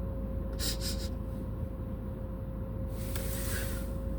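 Steady low vehicle cabin rumble with a constant hum, broken by a short hiss about half a second in and a longer one about three seconds in.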